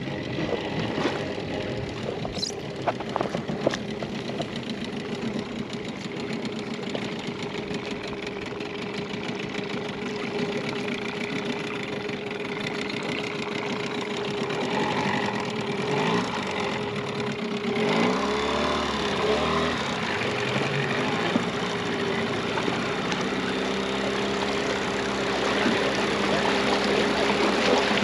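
Small motorboat's engine running steadily while towing a second boat, over a steady rushing noise; its pitch wavers briefly about two-thirds of the way through.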